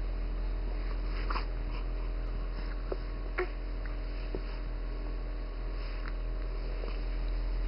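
A young baby's small mouth and breathing sounds as it mouths its fist: a few short, soft clicks and sniffs over a steady low hum.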